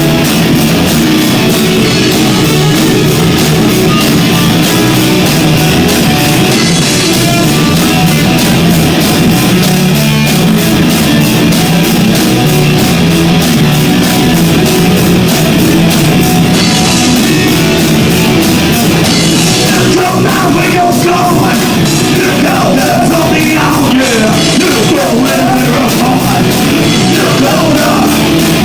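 Loud live rock band playing: drums, electric guitar and bass in a steady, continuous full-band passage. It is picked up by an overloaded phone microphone, so the sound is distorted and clipped.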